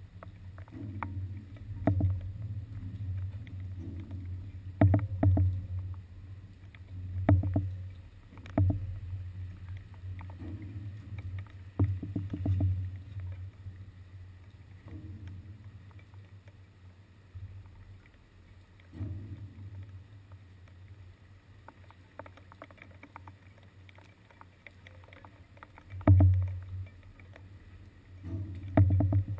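Water sloshing under a floating ferry landing, a low rumble that swells and fades, with sharp knocks and thuds at uneven intervals as the landing shifts.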